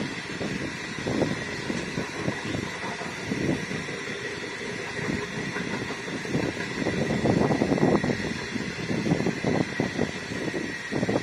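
Long stainless-steel passenger train's carriages rolling past close by, the wheels rumbling with irregular thumps and clatter, under a faint steady high whine.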